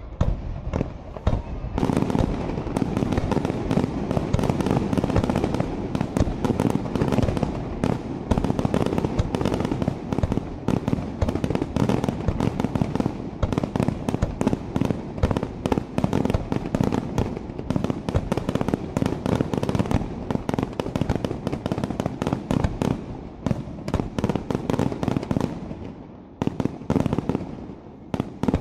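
Aerial fireworks display: a dense, continuous barrage of shells bursting, many sharp bangs a second, from about two seconds in until near the end, with a few single bangs on either side.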